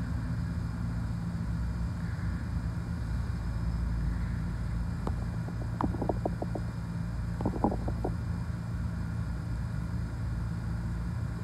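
Steady low background hum, with a short run of small clicks and lip smacks about halfway through as lip gloss is dabbed on with its wand and the lips pressed together.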